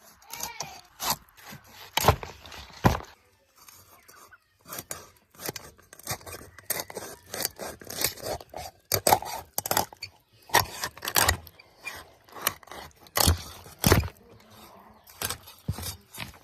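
Irregular knocks and scrapes of kitchen utensils on cookware, with a few sharper, louder knocks among them.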